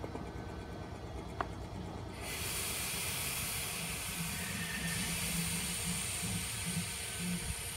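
A steady hiss starts suddenly about two seconds in and holds, over a low hum.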